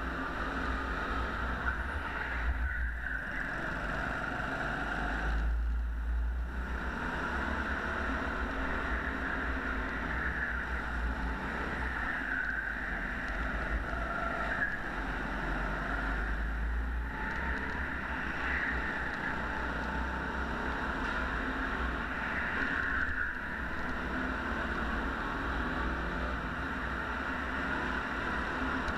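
Rental go-kart engine running at speed on an indoor track, a steady drone with low rumble on the onboard microphone, easing off briefly a few times.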